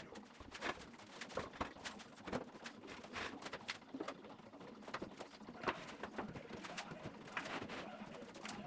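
Faint, scattered knocks and clicks of a benchtop drill press and its wooden table being handled and set in place on a cabinet top.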